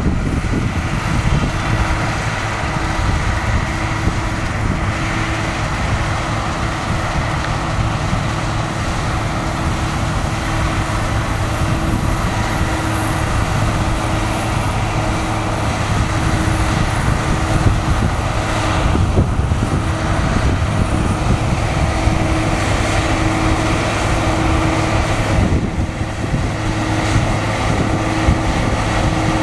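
Claas Lexion 450 combine harvester running under load while cutting wheat: a steady drone of the engine and threshing machinery with a constant hum.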